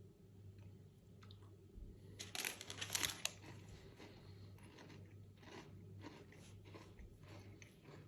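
Someone bites into a Kinder Happy Hippo's crisp wafer shell: a loud burst of crunching about two seconds in, then softer, separate chewing crunches.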